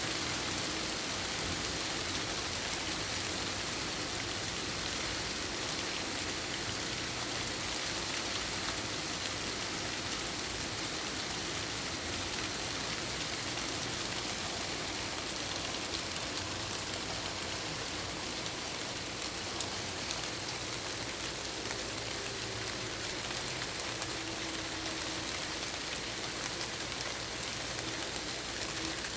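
Steady rainfall: a dense, even hiss of rain with scattered individual drops ticking on surfaces.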